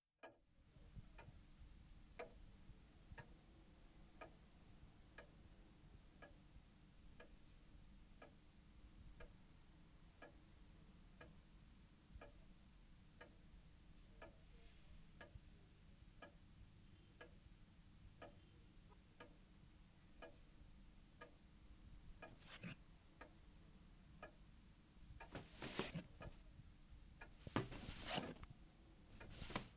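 A clock ticking steadily, about one tick a second, over a faint low hum. Near the end a few louder, noisier sounds break in.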